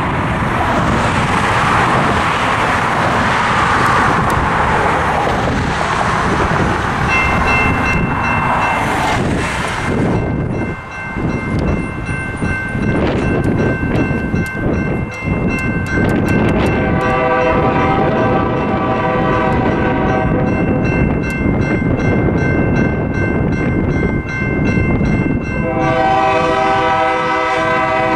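Road traffic passing, then the crossing's General Signals Type 2 electronic bells begin ringing steadily about a quarter of the way in as the signals activate. A little past halfway the horn of GE B39-8 locomotive HMCR 8560 sounds a chord for a few seconds, and again near the end.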